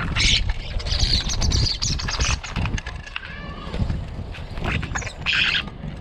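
Common starlings, adults and brown juveniles, squawking harshly at very close range, with bursts of calls about a second apart. Under the calls, feet scrabble and wings flap against the feeder.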